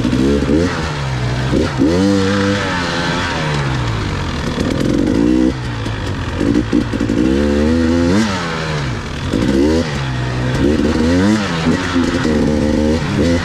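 Two-stroke enduro motorcycle being ridden on a trail, its engine revs climbing and dropping over and over as the rider works the throttle and shifts gears.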